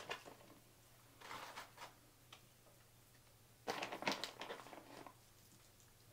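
Two short spells of soft rustling and crackling, the second longer and louder, as pulled pork is dropped and spread over a layer of tortilla chips.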